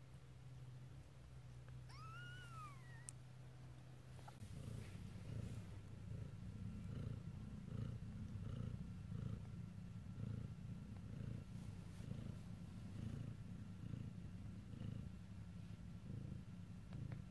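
Nursing mother cat purring, a low rhythmic purr that grows louder and more pulsing about four seconds in. A newborn kitten gives one short mew that rises and falls, about two seconds in.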